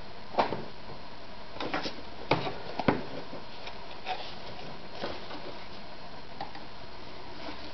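Handling noises at a sewing machine: a few scattered sharp clicks and knocks as a leather-and-felt piece is picked up and set under the presser foot. The loudest come about half a second in and around three seconds in, over a steady background hiss.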